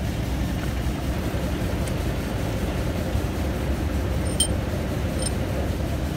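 Steady low engine-like rumble, with two light metallic clinks a little past the middle as engine parts are handled.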